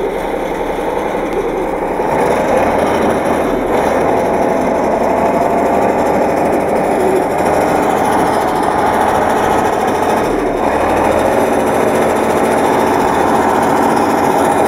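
T-150 tractor's diesel engine running hard under load with a steady rattling drone, stepping up in loudness about two seconds in, as the tractor works through deep, wet mud.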